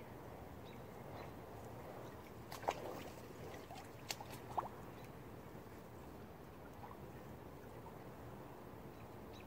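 Faint movement in dry brush and fallen branches, with a few sharp clicks: one about a quarter of the way in and two close together near the middle, over a low steady hiss.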